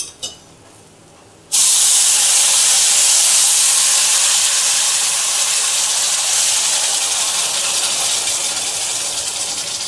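Water poured into a hot stainless steel pan of roasted semolina, hissing loudly as it hits the hot pan and flashes to steam, the step where water is added to make upma. The hiss starts suddenly about a second and a half in and fades slowly.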